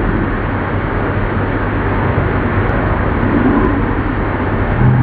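Old metal-turning lathe running: a steady mechanical noise with a low hum underneath.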